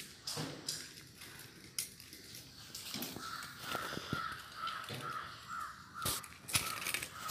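A crow caws in a quick series of about three calls a second from about three seconds in. Over it come scattered sharp clicks and crunches from a puppy eating dry kibble out of a steel bowl.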